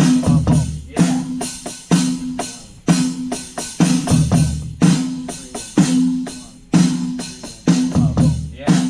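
Drum kit played in a steady beat, with a strong hit about once a second, over a repeating low pitched riff; a deeper low note sounds about every four seconds.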